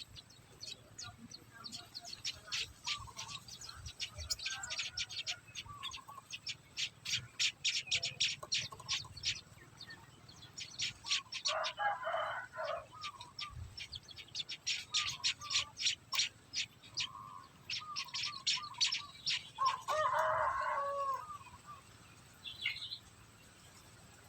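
Society finches chirping: long runs of rapid, short, high chirps several times a second, broken by pauses. Two louder, lower calls come about 12 and 20 seconds in.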